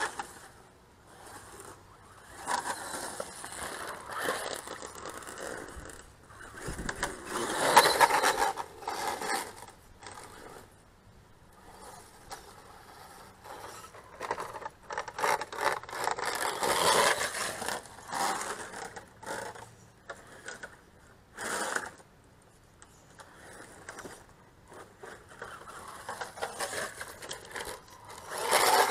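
Radio-controlled Brutus monster truck driving hard on loose dirt: its motor revs in surges while the tyres scrape and throw soil. It is loudest about eight seconds in and again near the end as it passes close.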